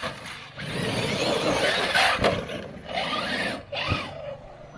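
Electric radio-controlled truck running on a dirt track, its motor whining and tyres scrabbling in the dirt, with a sharp knock a little past two seconds in and another near four seconds.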